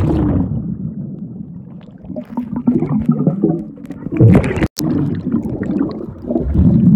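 Muffled underwater sound picked up by a phone's microphone inside a waterproof case: low bubbling and water rushing, with the treble cut away. The sound drops out for an instant about halfway through.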